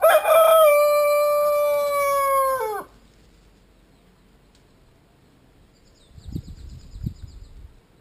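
A rooster crows once: one long call of about three seconds that holds its pitch and drops off at the end. Near the end, a couple of soft thumps come with a quick, faint high ticking.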